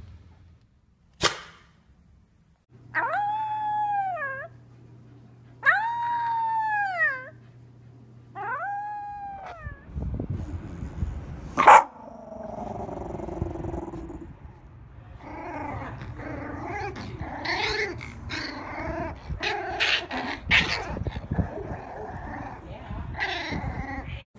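Shiba Inu giving three short howls, each about a second and a half long, rising and then falling in pitch. Then come rough growls, and Shiba puppies growling and yipping as they play-fight.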